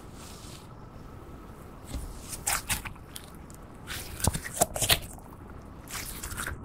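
Hands stretching and pulling apart sticky slime (clear slime tinted with nail powder), making short crackling pops and sticky peeling sounds. They come in clusters about two seconds in and again around four to five seconds.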